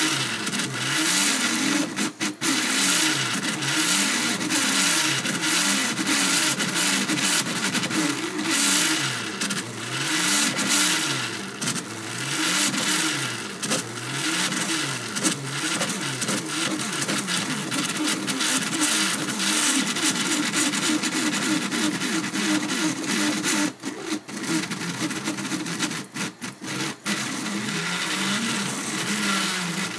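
3D printer's stepper motors whining in tones that rise and fall again and again as the print head moves back and forth laying infill. Underneath is the steady hiss of the hotend's cooling fan. The sound dips briefly a few times near the end.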